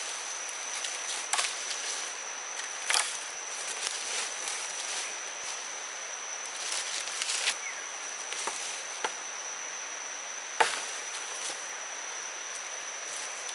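An insect's steady high-pitched drone over a faint hiss, with a few sharp knocks scattered through, the loudest about three quarters of the way in.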